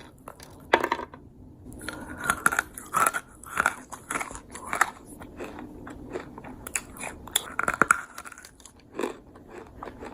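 Close-up biting and chewing of crunchy dried fruit: irregular sharp crunches, several a second, with softer chewing between them.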